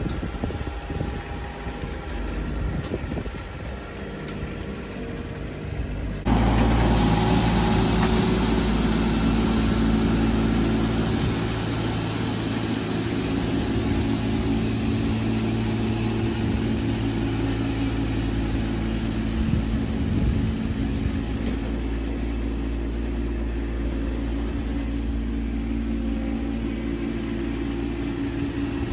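John Deere garden tractor running with its front rotary broom sweeping thatch out of the lawn: a steady engine hum under a broad rushing noise. The sound jumps abruptly louder about six seconds in.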